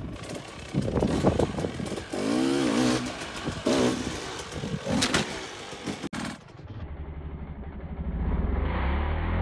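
Dirt bike engine blipped in short, sharp revs as the bike hops between stone blocks, with knocks from the tyres landing. About six seconds in the sound changes abruptly to a duller, steadier engine drone at low revs that grows louder near the end.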